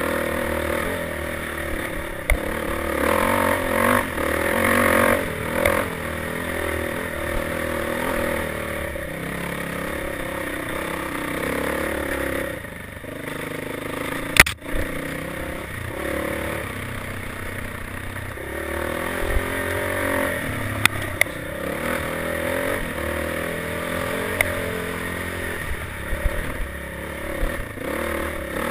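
Dirt bike engine running with the throttle rising and falling as the bike is ridden over rough ground, heard from the rider's helmet. Rattling and clatter come from the bike, and there is one sharp, loud knock about halfway through.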